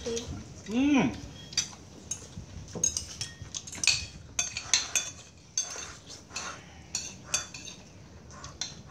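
Metal spoons clinking and scraping against ceramic bowls and plates of rice while eating, in irregular light clinks.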